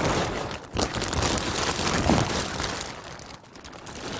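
A large clear plastic sheet rustling and crinkling as people move about beneath it, with brief lulls about a second in and again just past three seconds.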